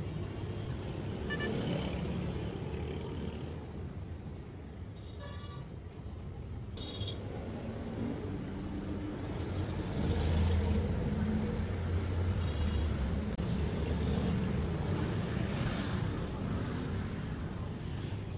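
Low, steady rumble of motor vehicle engines running and passing, growing louder about ten seconds in, with a few brief high tones around five to seven seconds in.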